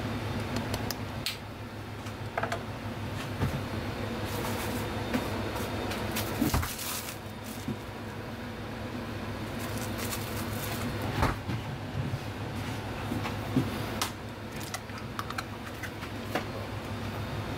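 A steady low mechanical hum of kitchen machinery, with scattered small clicks, taps and knocks from seasoning bottles and utensils being handled over a stainless steel mixing bowl. A few sharper knocks stand out, about six seconds in and again about eleven seconds in.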